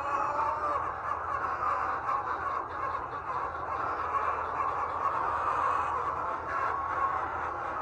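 Many chickens calling at once on an egg farm, a steady overlapping din of hen calls over a low steady hum.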